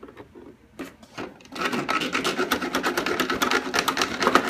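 Utility knife sawing through cardboard packaging in a box. A fast, even run of scraping strokes starts about a second and a half in and goes on to the end.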